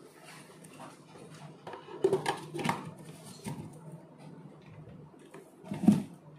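A steel spoon clinking and tapping against a steel lota while powdered sugar is tipped in, several light strikes about two seconds in. A louder single knock comes near the end.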